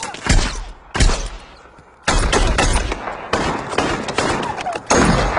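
Rifle gunfire in a firefight. A few heavy shots come in the first second, then a short lull, then dense rapid firing from about two seconds in.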